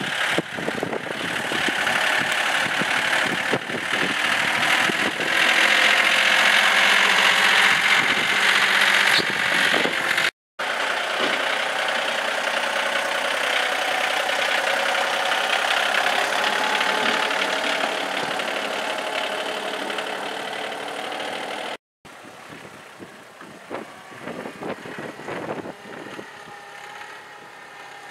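John Deere compact tractor's three-cylinder diesel engine running while its front blade pushes snow, with a lot of hiss and rushing noise over it. Two brief dropouts break it up, and it is quieter for the last few seconds.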